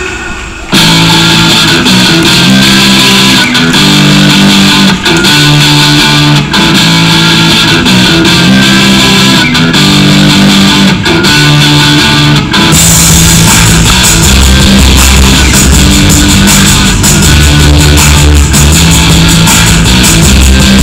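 Loud guitar-led music. It dips briefly at the very start, and a heavier bass comes in a little past halfway.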